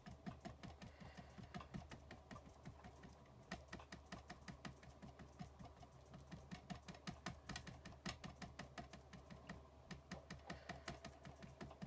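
A small ink pad tapped again and again onto a stamp to ink it, giving light, quick clicking taps about three or four a second.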